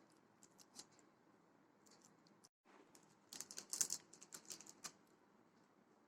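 Faint, light clicks and scratchy taps of a utensil working on bread while a sandwich is assembled, busiest from about three to five seconds in; otherwise near silence.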